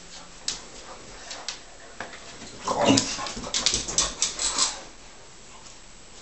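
Two dogs play-fighting: a few sharp clicks and scuffles, then a short burst of dog vocalising in play about three seconds in, with a flurry of scuffling and clicks as they tussle on the futon.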